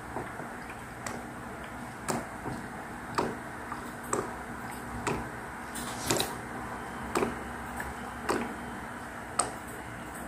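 Ink bottle held upside down in an Epson L121 printer's ink tank, draining with a soft glugging click about once a second as air bubbles up into the bottle.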